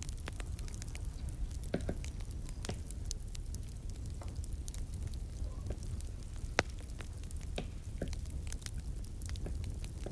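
Crackling wood fire: irregular sharp pops and snaps over a low steady rumble, with one louder pop about six and a half seconds in.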